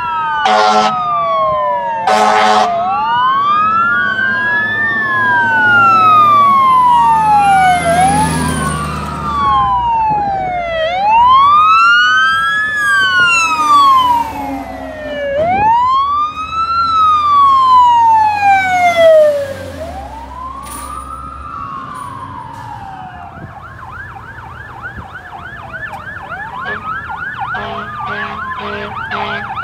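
Fire trucks passing with electronic sirens wailing, rising and falling about every four seconds. There are short horn blasts in the first couple of seconds and a heavy truck engine going by in the middle. After about 20 seconds it is quieter, and a faster, rapidly warbling siren approaches toward the end.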